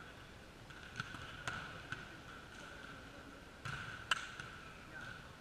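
Volleyballs being hit and bouncing on a sports hall floor during warm-up: scattered sharp smacks, three within the first two seconds and a louder one about four seconds in. A steady faint high tone runs underneath.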